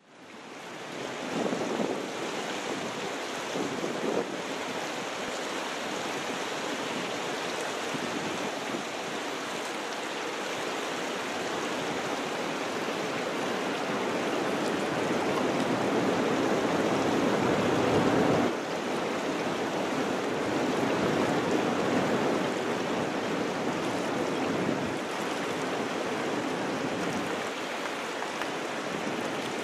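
Steady rush of moving water mixed with wind. It builds slowly to its loudest just past the middle, then drops suddenly.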